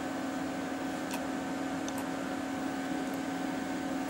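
A steady low electrical hum over a faint hiss, with three faint high ticks spread through it.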